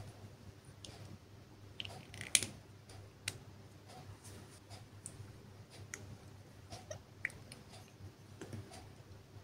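Small plastic clicks and taps from makeup tubes, caps and a compact case being handled and opened. They come irregularly, and the loudest is a sharp click about two and a half seconds in.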